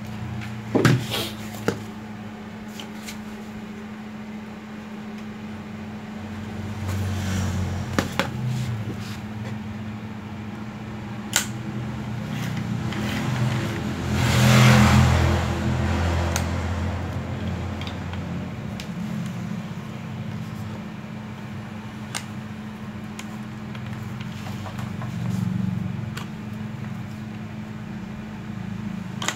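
Clicks and knocks of a drill bit being fitted and handled on a hammer drill, over a steady low mechanical hum. A louder swell of noise rises and falls about halfway through.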